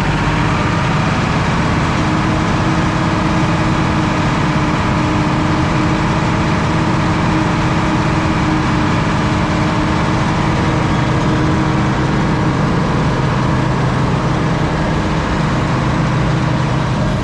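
Rotochopper B66 wood grinder running with its rotor spooled up to speed, a loud, steady drone with a thin high whine above it and no knocks or changes. The main drum runs without any sign of internal damage.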